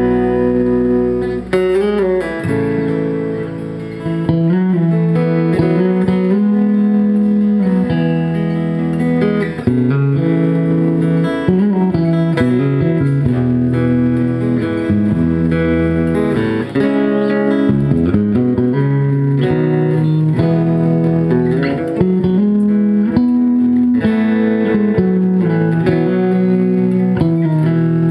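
Instrumental break of a folk song played live: a guitar picks the melody over an electric bass line, with no singing.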